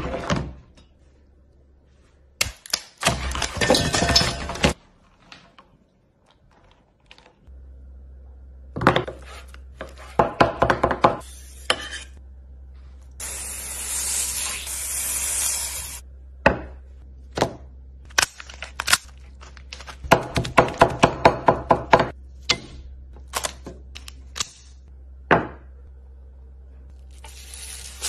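Food-preparation sounds from a series of short clips: knocks, cracks and quick taps of a knife and food on a plastic cutting board as raw poultry is cut, with stretches of crackling and hiss between them.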